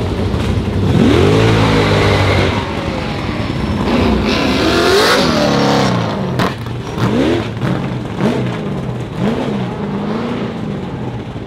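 The 1911 Fiat S76's 28.4-litre four-cylinder engine revving as the car pulls away, rising in pitch in long sweeps and then in a run of short revs, with the engines of other race cars close by mixed in.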